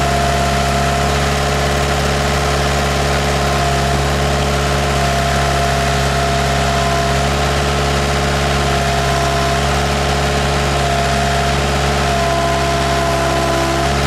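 Case 580E backhoe's diesel engine running steadily while the backhoe arm swings, with a steady whine on top.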